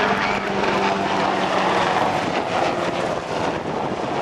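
Black Hawk-type military helicopter flying low past, its rotor blades chopping rapidly and steadily over the engine noise.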